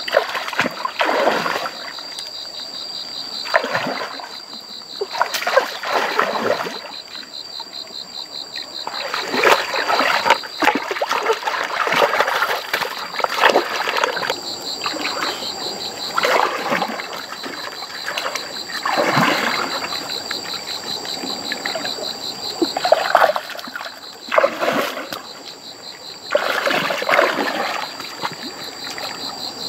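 Water splashing in short irregular bursts, every second or two, over a steady high pulsing drone of insects.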